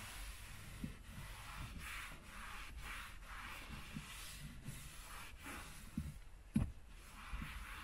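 Microfibre towel wiping over a leather car armrest in repeated back-and-forth strokes, with a soft thump a little over six seconds in.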